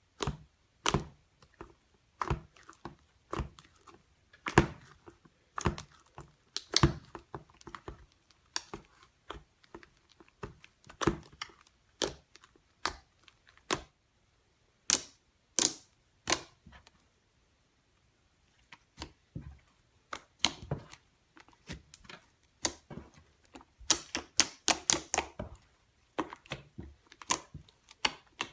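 Slime handled close up, giving sharp, irregular clicks and pops, with a short pause a little past the middle.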